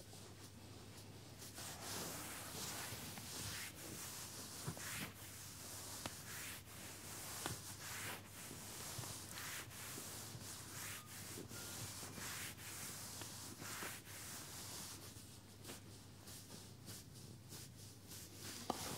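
Hands rubbing firmly along a leg through denim jeans during a massage: repeated swishing strokes of palms on the fabric, one after another.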